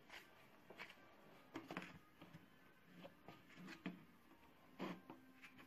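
Faint, irregular soft clicks and rustles of hands squeezing and kneading a lump of lightweight modelling clay, otherwise near silence.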